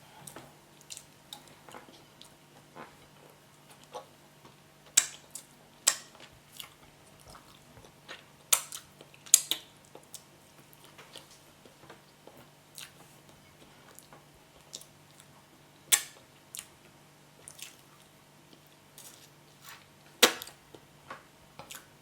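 Close-up mouth sounds of eating soft boiled yam and spinach: chewing and wet smacks as scattered clicks, with half a dozen much louder sharp clicks spread through. A faint steady hum sits underneath.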